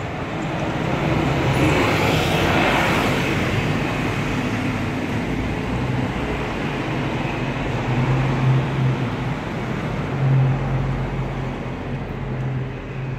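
A city bus passing close by, its engine and tyre noise swelling to a peak about two or three seconds in and then fading. A steady low engine hum of street traffic carries on beneath it, louder again a little past the middle.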